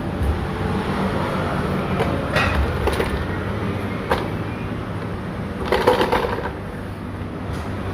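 Clothes being loaded into a coin-operated tumble dryer: a few knocks and rattles, with a louder clatter about six seconds in, over the steady hum of laundry machines.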